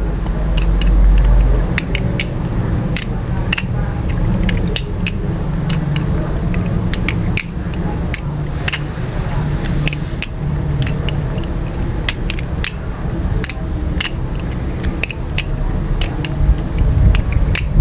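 Balisong (butterfly knife) being flipped through a loop: the handles and blade clicking and clacking against each other at an irregular pace, over a steady low hum.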